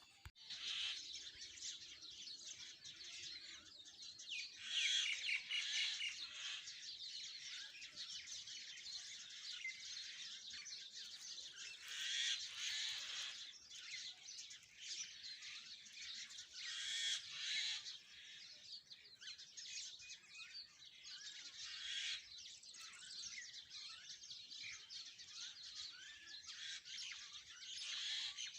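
Many small birds chirping and twittering together without pause, the chorus swelling louder several times.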